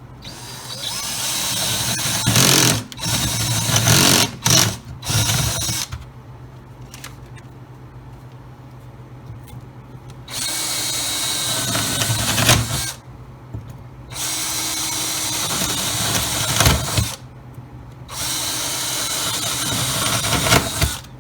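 Power drill boring four holes through a plywood deck: four runs of a few seconds each with pauses between. The first run stops and starts several times.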